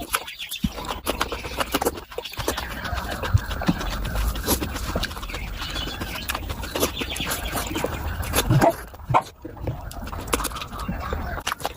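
Close-miked chewing and wet lip smacking while eating mutton fat curry with rice: a dense run of sticky clicks and smacks over a low hum.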